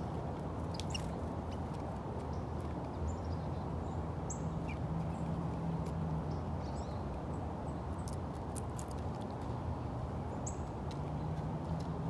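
Short, faint chirps and calls from wild songbirds at a backyard feeder, with scattered sharp clicks, over a steady low rumble. The rumble is the loudest sound, and a low hum rises in it twice.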